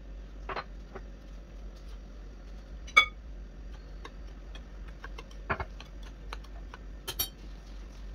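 Scattered small clicks and taps of a spoon and a small glass against a glass mixing bowl as dry powders are added to crumbs and stirred. The loudest is a single ringing glass clink about three seconds in, with another ringing clink near the end.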